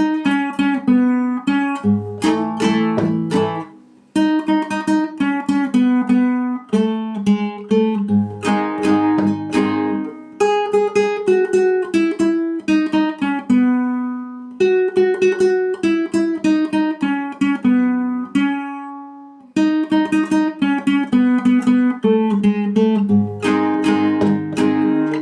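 Solo acoustic guitar picking a melody note by note, with deeper bass notes under some phrases. It pauses briefly between phrases about 4, 14 and 19 seconds in.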